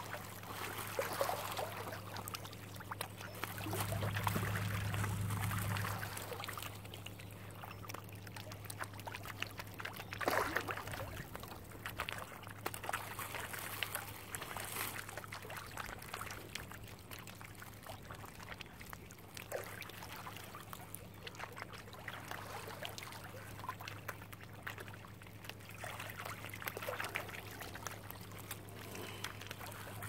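Small water splashes and lapping around mute swans and mallards dabbling and swimming at the surface, over a steady low hum that swells briefly about four seconds in.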